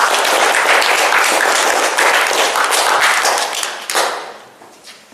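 Audience applauding steadily, dying away about four seconds in.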